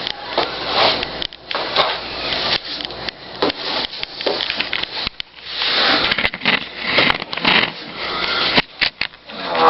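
Cat litter being scraped and dumped out of a litter pan: gritty scraping and rustling in uneven sweeps, with a few sharp knocks near the end.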